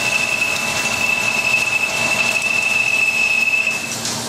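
A 2 3/8-inch Coromant drill cutting from solid into 4140 steel in a CNC vertical machining center under heavy load, about 120% spindle load, with high-pressure coolant fed through the spindle. The cut gives a steady high-pitched squeal over the hiss of coolant spray. The squeal stops near the end as the drill finishes its feed and retracts.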